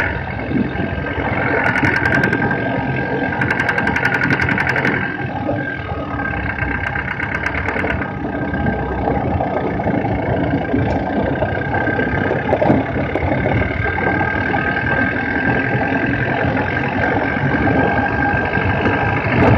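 A 4x4's engine running as it drives slowly along a gravel track, with tyre noise from the stones. Short spells of rapid clicking come about two seconds and four seconds in.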